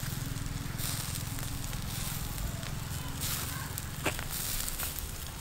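Charcoal embers crackling under a spit-roasted chicken, with a faint sizzle and a steady low rumble underneath. There is one sharp crack about four seconds in.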